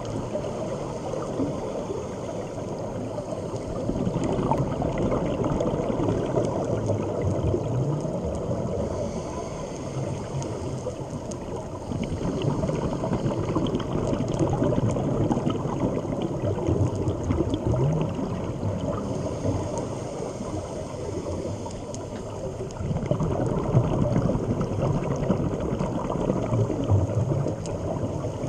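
Underwater gurgling and bubbling from a scuba diver's regulator, heard through a camera housing. It swells for several seconds at a time and eases in between, following the diver's breathing.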